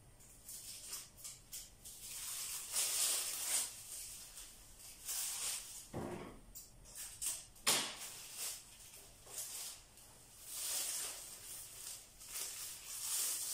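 Thin black plastic strips rustling and crinkling in irregular bursts as they are handled and tied onto a line, with a couple of sharper clicks partway through.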